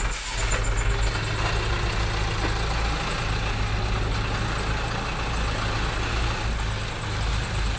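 Thaco dump truck's diesel engine idling with a steady low rumble.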